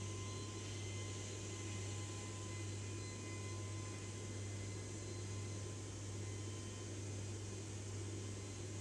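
Steady low hum with an even hiss and faint high steady tones, unchanging throughout: room tone.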